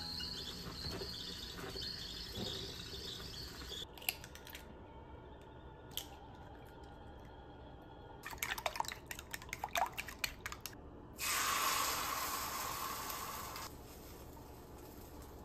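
Kitchen cooking sounds. First a steady hiss from a clay rice pot on a gas burner. After a cut, eggs are cracked and beaten in a glass bowl in a quick run of clicks and taps. Then comes a couple of seconds of loud sizzling as egg meets a hot rectangular tamagoyaki pan.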